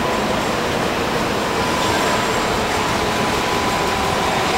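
Osaka Subway 10 Series chopper-controlled electric train approaching along the tunnel into the station: a steady running noise of wheels and motors echoing off the underground platform, with a faint steady high tone through it.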